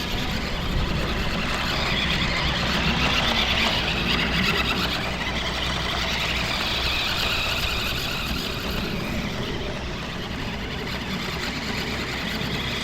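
Electric motor and gears of a toy RC pickup truck whining as it drives, swelling and fading with the throttle.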